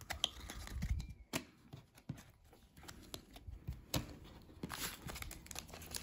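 Quiet handling of baseball cards and card packs on a tabletop: scattered light taps, clicks and soft rustles.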